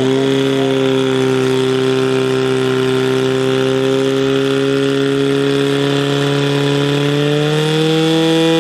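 Portable fire-sport pump engine running flat out at a steady high pitch, under load as it pumps water through the attack hoses. The revs rise slightly near the end.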